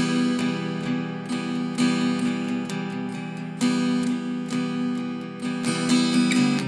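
Solo acoustic guitar, a Baby Taylor travel-size guitar, strumming chords in a steady rhythm, a couple of strokes a second.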